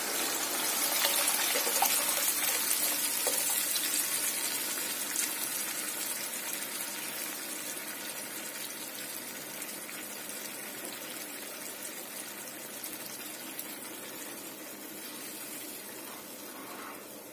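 Tamarind water poured into a hot kadai of onion-tomato masala, the liquid gushing and bubbling in the pan, the noise fading steadily as it settles.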